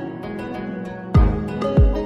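Background music: a plucked-string melody, joined about a second in by a deep beat that thumps twice before the end.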